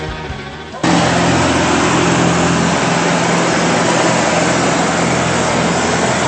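A boat engine runs with a steady low hum over a loud rush of water wash and wind noise. It starts abruptly about a second in.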